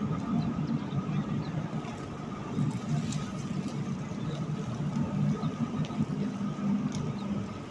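Steady low drone of a large ship's engines during berthing, with a faint, steady, higher whine over it.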